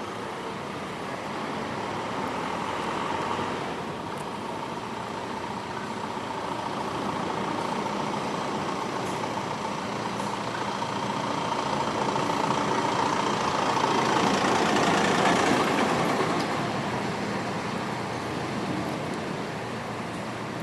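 Street traffic: a steady rush of passing road vehicles that swells twice, loudest about three-quarters of the way through as a vehicle goes by.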